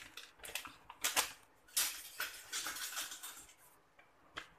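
Plastic seasoning sachet crinkling as it is handled, in several short scratchy bursts.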